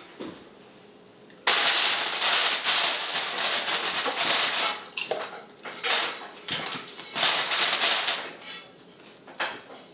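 Plastic snack-chip bag crinkling as it is handled and opened. The sound comes in loud, uneven bursts that start suddenly about a second and a half in and die down near the end.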